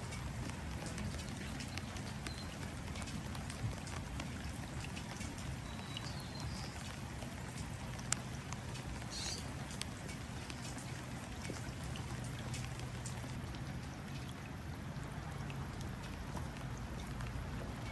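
Steady outdoor rain, with raindrops tapping onto water in many fine ticks and one sharper tap about eight seconds in. A few brief high bird chirps come through now and then.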